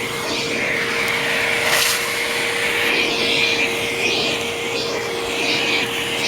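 Eureka The Boss Smartvac 4870 upright vacuum cleaner running, with a steady motor whine under a rushing air noise. The rushing swells and fades about once a second as it is pushed back and forth.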